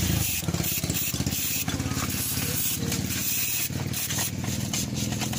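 Aerosol cleaner hissing from a spray can in repeated short bursts as it is sprayed onto the oil pan around the drain plug. An engine runs steadily in the background.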